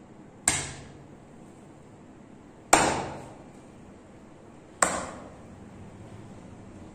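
Three loud, sharp slaps of a masseur's hand striking the body during a massage, about two seconds apart, each fading quickly.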